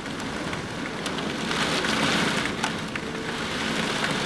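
Heavy rain pouring down, with drops ticking against the window glass; it grows a little louder about a second and a half in.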